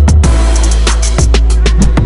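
Electronic intro music with a heavy bass line and a fast, driving drum beat.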